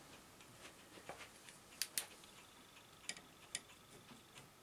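Faint, sparse metallic ticks of a long screwdriver working a screw loose in a Betamax deck's metal chassis, with a few sharper clicks in two close pairs around the middle.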